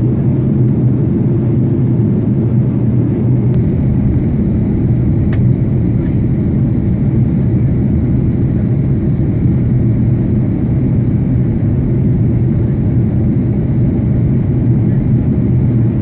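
Steady airliner cabin noise on approach to landing: an unbroken low rumble of the engines and rushing air, with a faint click about five seconds in.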